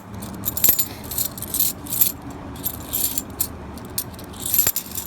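Half dollar coins clinking together in a run of short metallic clinks as they are handled and sorted by hand while a roll is searched.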